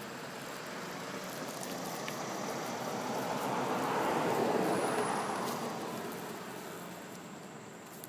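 A road vehicle passing by: a rushing noise that swells to its loudest about halfway through, then fades away.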